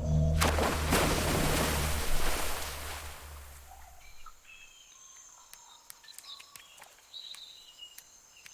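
A loud, low, steady rumble with a sweeping whoosh about half a second in fades out over about three seconds. It leaves a faint jungle ambience with scattered bird chirps.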